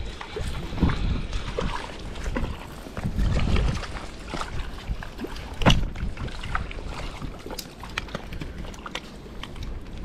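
Fast-flowing brook water with wind and handling rumble on the microphone, broken by irregular clicks and knocks from the spinning reel and landing net; the sharpest click comes about halfway through.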